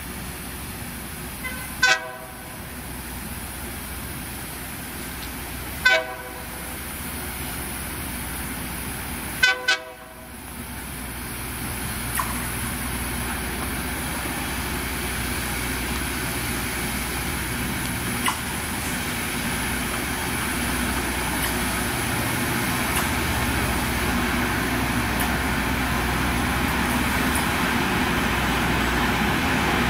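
Three short horn toots in the first ten seconds, the last one doubled, then the Loram RG-401 rail grinder approaching, its grinding stones on the rail making a steady noisy rush that grows slowly louder.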